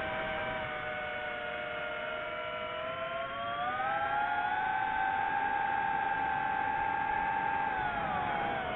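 Drone motors and propellers whining in flight, several close tones together. The whine rises in pitch about three and a half seconds in, holds, then drops back near the end.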